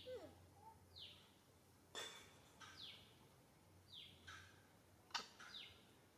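A bird calling repeatedly and faintly: short high chirps that sweep downward, about one a second. Two sharp clicks are also heard, the louder one about five seconds in.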